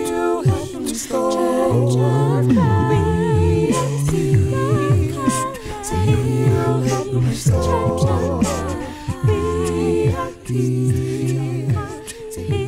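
A cappella vocal group singing in harmony with no instruments: several voices hold sustained chords with vibrato over a deep bass part.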